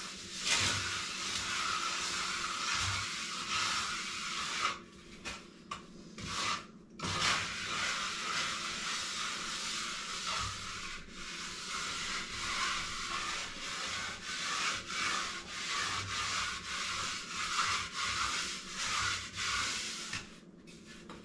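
A hand float rubbing over cement render on a wall, a continuous scratchy sweeping with a few short pauses between about four and seven seconds in.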